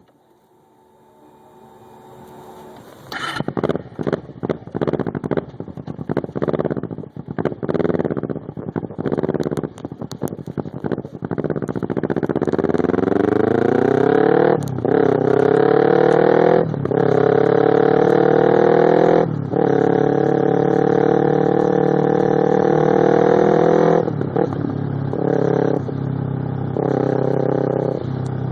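Kawasaki Ninja 250R's parallel-twin engine through a loud Two Brothers slip-on exhaust. It is revved in a string of short throttle blips, then pulls steadily for about twelve seconds with three brief breaks like gear changes, and ends with more short blips.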